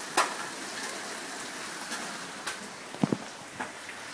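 Heavy summer downpour: steady, hard rain, broken by a few sharp knocks.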